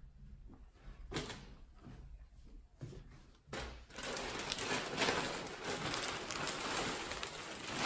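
Plastic packaging crinkling and rustling as it is handled, starting about halfway through and continuing steadily, after a couple of light knocks in the quieter first half.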